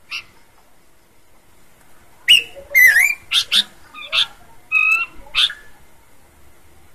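Horsfield's babbler singing: one short note, then about two seconds in a quick run of loud, clear whistled notes that slide up and down in pitch, lasting about three seconds.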